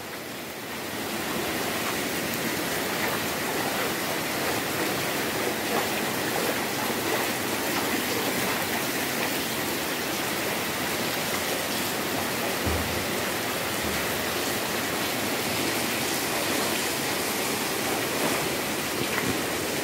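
Muddy floodwater rushing steadily across a tiled floor and spilling over its edges, a continuous even rushing noise.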